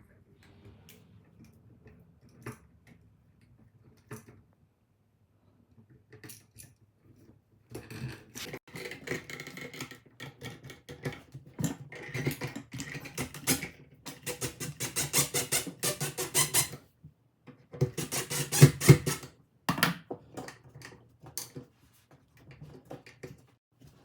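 Hand-work noises from fitting a GFCI outlet into its wall box: scattered clicks and taps, then a long stretch of irregular scraping, rubbing and squeaking, loudest about two thirds of the way in, ending in a few more clicks.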